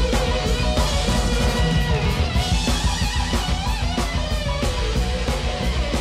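Rock music: electric guitar playing a bending lead line over a steady drum beat and heavy bass, with no singing.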